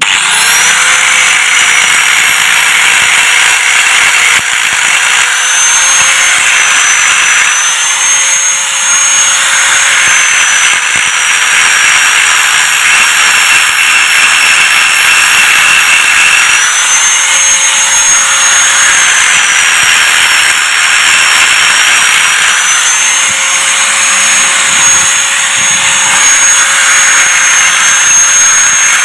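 Electric angle grinder spinning up and grinding the inner surface of a worn motorcycle brake drum, with sparks flying. It gives a loud, steady whine over scraping metal, and the pitch sags slightly and recovers several times as the disc is pressed in.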